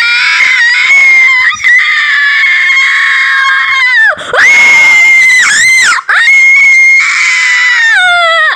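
Loud, high-pitched screaming: one long held cry of about four seconds, then two shorter cries, each sliding down in pitch as it ends, the last one cut off suddenly.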